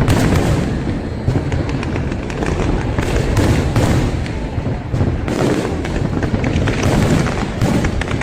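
Fireworks display going off in a continuous barrage: many bangs and crackles every second over a deep rumble, with no pause.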